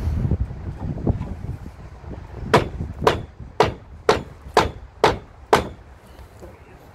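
A hammer striking the steel frame of a fairground ride's tram section: a few dull knocks, then seven sharp, evenly spaced blows about two a second, driving the beam into its joint.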